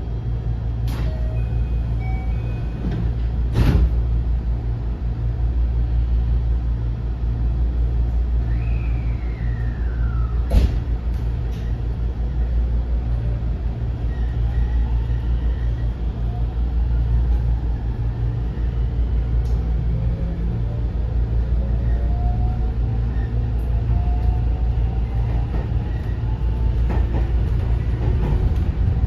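Cabin sound of a JR West 207 series motor car with a Mitsubishi IGBT VVVF inverter pulling away: a steady low rumble with a couple of sharp knocks near the start. About halfway through, the inverter and traction-motor whine begins to climb in pitch as the train accelerates.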